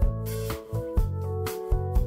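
Background music with a steady beat: held melody notes over a bass line.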